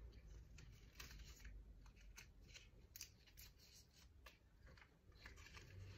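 Near silence, with faint scattered small clicks and rustles as a tulip's petals are folded back (reflexed) by hand.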